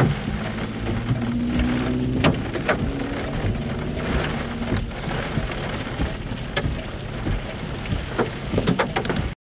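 Rain falling, with many sharp drops striking close by and a low hum beneath; the sound cuts off suddenly near the end.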